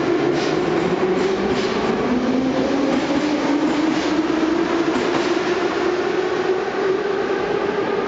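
Kyiv Metro train moving alongside the platform: a steady, loud running noise with a whine that dips in pitch and then rises again. A few wheel clacks over rail joints come in the first five seconds.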